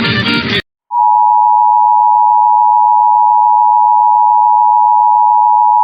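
Music cuts off abruptly. About a second in, the Emergency Alert System attention signal starts: a loud, steady two-tone beep (853 and 960 Hz sounded together) that announces a monthly test alert.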